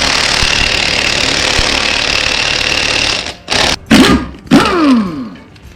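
A Milwaukee impact wrench hammering steadily on a stubborn truck lug nut for about three seconds. It then stops, and two short bursts follow that wind down in pitch.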